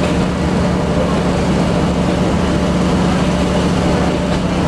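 Diesel train running steadily along single track, heard from the driver's cab: a constant engine drone mixed with the rumble of wheels on the rails.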